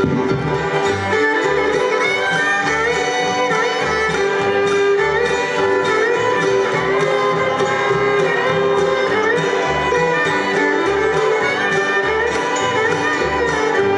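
Live bluegrass band playing a tune: bowed fiddle over strummed acoustic guitars and mandolin, with upright bass notes on the beat about twice a second.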